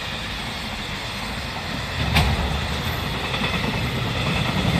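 Freight train's container wagons rolling past close by: a steady rumble of steel wheels on the rails. The rumble grows louder about two seconds in, where a single sharp knock is heard.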